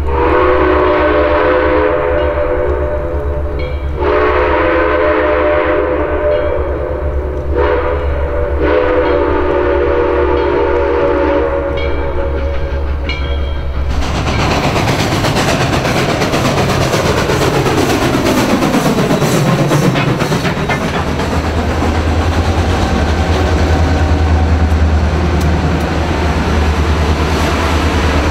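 Southern Railway 630, a 2-8-0 steam locomotive, blowing its steam whistle for a grade crossing: long, long, short, long, for about fourteen seconds. The whistle then stops and the locomotive and its passenger cars pass close by, with a falling sweep of sound followed by the steady clickety-clack of wheels over rail joints.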